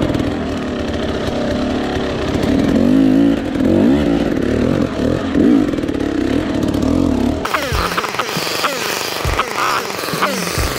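Dirt bike engine running and revving, its pitch rising and falling as it rides. About seven and a half seconds in, the sound switches abruptly to a hissing rush with a few low thumps.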